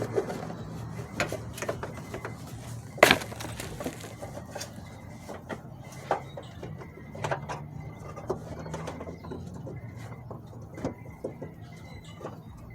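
Scattered clicks and knocks of hands handling and seating an LED headlight bulb in the car's headlight housing, with one louder knock about three seconds in, over a low steady hum.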